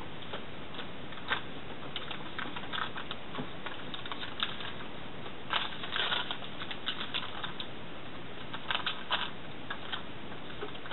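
Scattered light clicks and taps at an irregular pace, a cluster about six seconds in and another near nine seconds, over a steady background hiss.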